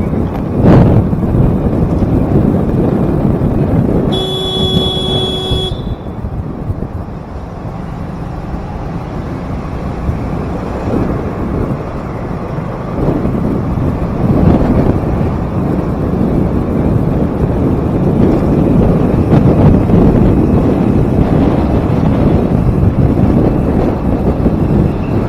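Wind buffeting the microphone over motorbike and road traffic noise while riding. A vehicle horn sounds once, about four seconds in, for roughly a second and a half.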